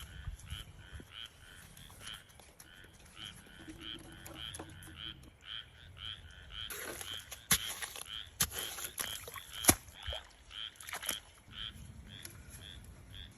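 A rhythmic animal call repeating about three times a second, with several sharp clicks or knocks in the middle.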